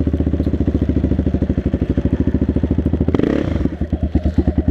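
Yamaha Raptor 660 ATV's single-cylinder four-stroke engine running at a slow, steady pace, about a dozen firing pulses a second. A brief clatter cuts in a little after three seconds.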